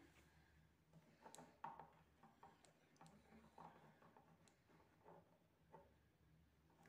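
Small magnetic metal balls clicking faintly and irregularly as they are nudged against each other and the cardboard board.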